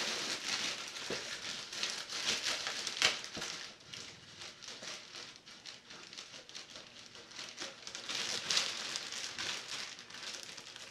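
Clear plastic packing bag crinkling and rustling as it is handled. It comes and goes, loudest about three seconds in and again about eight seconds in.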